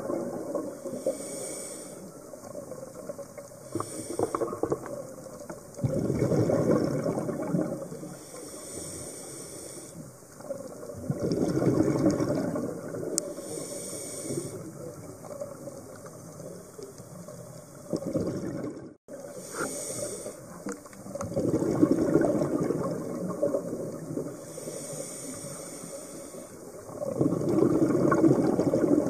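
Scuba diver breathing through a regulator underwater: a short hiss on each inhale, and a louder rush of exhaled bubbles that comes about five times, every five or six seconds.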